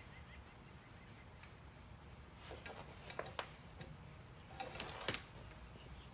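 A few faint clicks and taps, in two small clusters about two and a half and five seconds in: the plastic clamps and cord of a small battery charger being handled.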